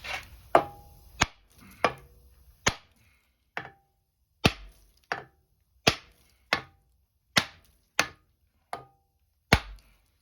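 Hammer blows on a Dana 44 front axle's steering spindle to knock it loose from the knuckle: about fourteen sharp metal strikes, roughly one every three quarters of a second, several with a short metallic ring.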